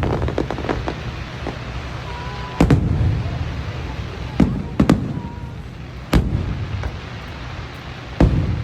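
Aerial fireworks exploding: about five loud booms at irregular intervals, each echoing briefly, with lighter crackling pops between them.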